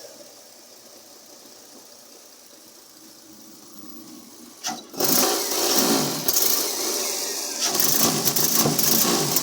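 Toyota 2MZ-FE V6 engine starting about five seconds in, then running with a rapid, uneven beat: the engine has a misfire.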